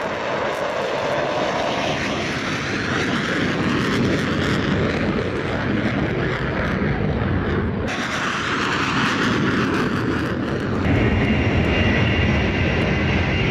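Military jet engines at an airfield: an F-22 Raptor's twin turbofans at high power on its takeoff roar, then after a cut the turbofans of a C-17 Globemaster III on the runway. From about two-thirds of the way in, a steady high whine sits over the roar and the sound gets a little louder.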